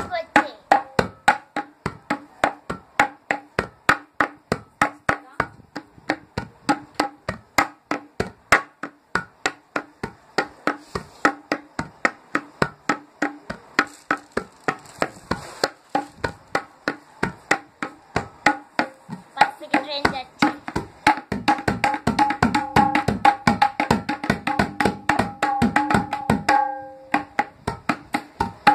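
Tabla played by hand in a steady driving rhythm meant to imitate a train, about three to four strokes a second, the drums ringing at their tuned pitches. A little past two-thirds through it quickens into a dense, louder roll, breaks off for a moment near the end, then carries on.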